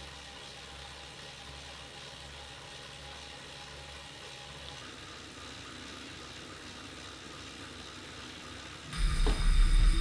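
Wahoo KICKR 2018 direct-drive smart trainer spinning under a rider at about 30 mph: a faint, steady whir with a light drivetrain hiss. About nine seconds in, a much louder low rumble with a steady whine cuts in suddenly.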